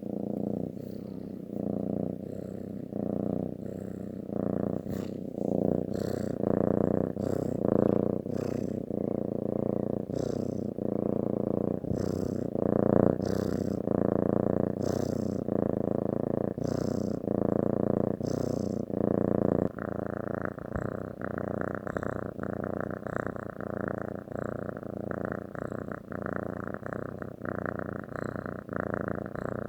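Domestic cat purring close up, the purr swelling and easing with each breath about once a second. Near the last third it becomes more even and buzzier.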